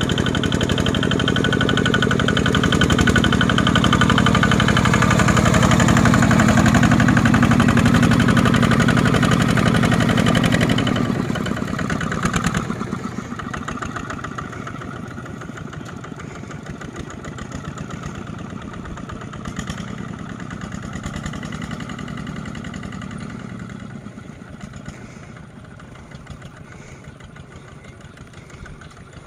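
Single-cylinder diesel engines of two-wheel tractors hauling loaded rice trailers: loud and steady while working through deep mud, then, after a break about 11 s in, a quieter one chugging up a dirt slope and fading as it pulls away.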